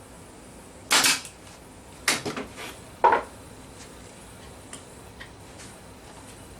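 Pin nailer firing pin nails into a wooden shelf: a sharp shot about a second in, a quick run of three shots about two seconds in, and one more about three seconds in.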